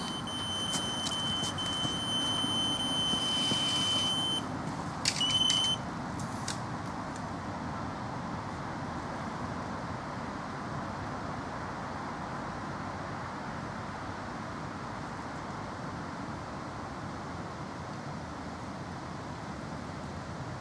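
Electronic carp bite alarm sounding one continuous high tone for about four seconds, then a second short tone, over a steady background rumble: line running off the rod, the signal of a take.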